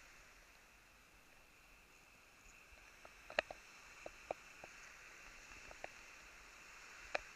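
Faint steady hiss, joined about three seconds in by a scatter of sharp clicks and taps, about eight in all, irregularly spaced, with the loudest near the end.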